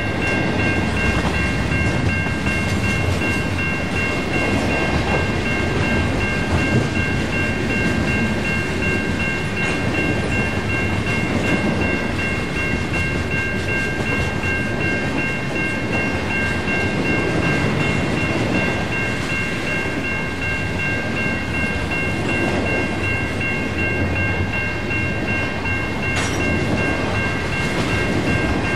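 Freight train rolling past at steady speed, wheels rumbling on the rails, with a steady high-pitched whine held throughout.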